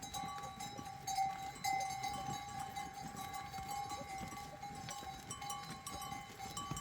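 Livestock neck bells ringing steadily, as on a flock of sheep or goats, over faint scattered clicks.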